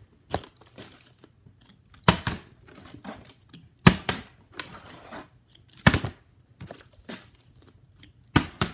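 Partly filled plastic water bottle flipped onto a wooden floor, landing with a sharp thud four times, about two seconds apart, with lighter knocks between.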